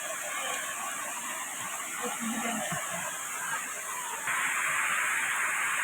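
Steady rushing of a waterfall, which becomes louder and brighter about four seconds in.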